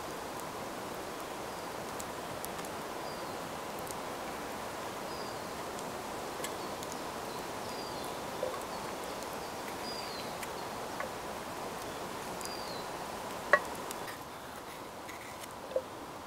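Steady wind-noise hiss on the camera microphone with faint short high chirps, and a few small clicks from a knife slicing bell peppers over a steel mug. The loudest is a sharp click a little before the end.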